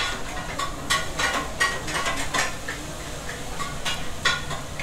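Metal spoon and fork clinking and scraping against a plate of noodles, an irregular run of short clicks.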